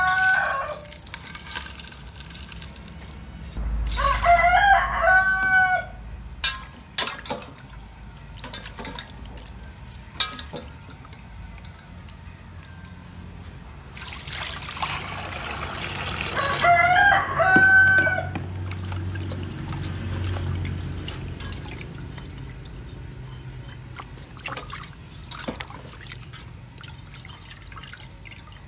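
A rooster crows three times: the end of one crow at the start, another about five seconds in and a third around seventeen seconds, each closing on a long held note. Water is poured from a scoop into a steel bowl holding a chunk of fish, a rushing splash of about three seconds starting around fourteen seconds in. Scattered knocks and taps come from the fish being handled in the bowl.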